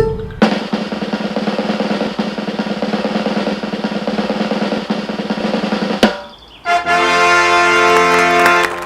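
A snare drum roll for about five and a half seconds that ends in a single sharp hit. After a short pause, a held musical chord follows.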